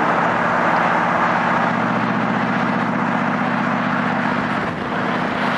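Car driving on the road: the engine runs at a steady pace under loud wind and road noise, easing off briefly near the end.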